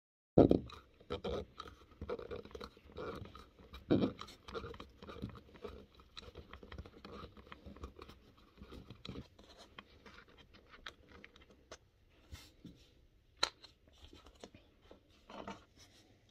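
Screwdriver working out the flathead screw that holds a Dometic 310 RV toilet's foot-flush valve assembly: irregular scraping, clicks and small knocks, starting abruptly and busiest in the first few seconds.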